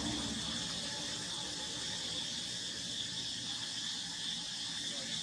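Insects droning steadily outdoors in one continuous high-pitched band, without break.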